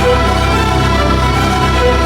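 Background music: sustained synthesizer tones over a steady low bass, with no beat or speech.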